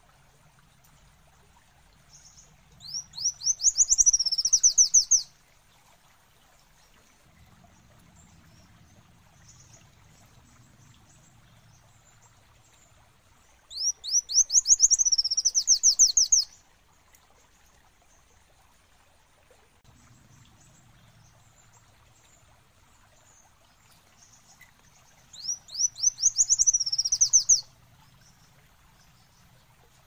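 Kolibri wulung sunbird singing three times, about ten seconds apart. Each song is a fast run of thin, high rising notes lasting about three seconds.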